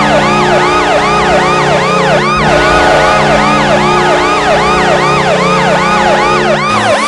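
Washington Capitals goal horn: a loud, steady low horn chord with a siren wailing over it in quick rising-and-falling swoops, about three a second. The horn chord cuts off near the end while the siren swoops go on.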